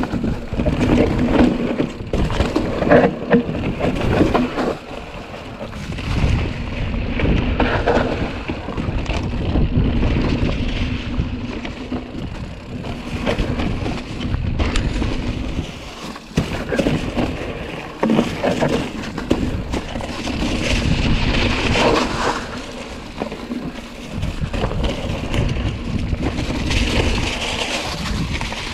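Mountain bike rolling down a rough, dry trail: tyres running over dry fallen bamboo leaves and rocks, with scattered knocks and rattles from the bike over bumps. Wind buffets the microphone.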